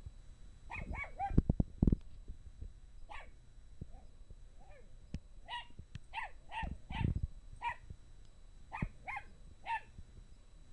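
Small dog barking at a hamster in a clear exercise ball: about a dozen short, high yapping barks in irregular runs, with a few heavy thumps about a second and a half in and again around seven seconds.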